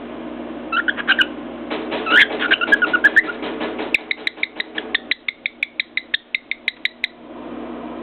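Cockatiel chirping and whistling: a few short chirps, then gliding whistles, then a quick even run of about seven short chirps a second that stops just after 7 seconds in. Sharp clicks run through the whistles and the fast run, typical of the bird tapping its beak on a mirror.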